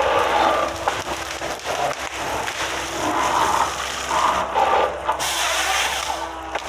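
Waratah H414 harvester head feeding a felled pine stem through its rollers, the delimbing knives stripping the branches with crackling and snapping, over the steady hum of the machine's engine.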